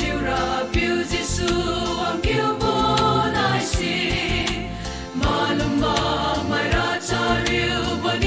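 Mixed choir of men and women singing a gospel hymn together, over backing accompaniment with a steady beat.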